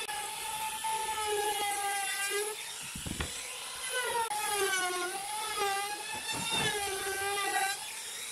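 Handheld trim router running at high speed, its whine dipping and rising in pitch as the bit cuts along the edge of a pine board. It drops out for about a second just before the middle, with a low knock in the gap, then runs again and stops near the end.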